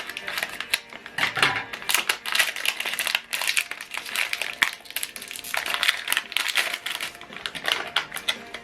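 Ink cartridge packaging handled and opened by hand: crinkling and rustling with many small clicks and taps.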